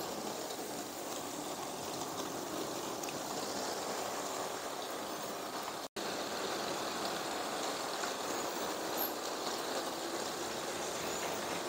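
LEGO battery-powered trains running on plastic track: a steady rolling rattle of plastic wheels on the rails with the train motor running. The sound drops out for an instant about halfway.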